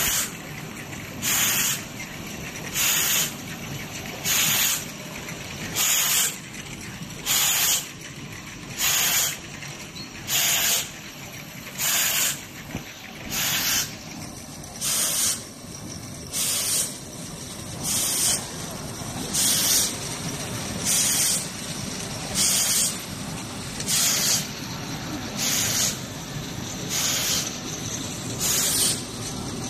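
Rotary ampoule washing machine running, its spray jets firing short hissing blasts at an even pace of about one every second and a half over a steady machine noise.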